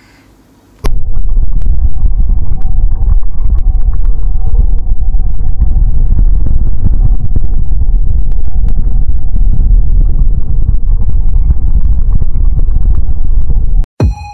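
A loud, deep rumble sound effect that starts suddenly about a second in and cuts off just before the end, with a faint steady tone above it.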